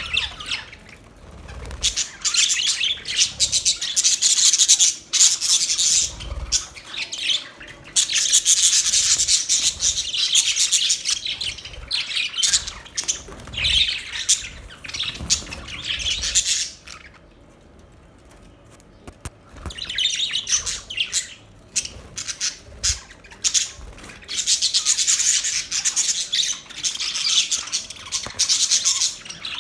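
A group of budgerigars chirping and chattering in dense, high-pitched bouts, with a quieter lull of about two seconds a little past the middle.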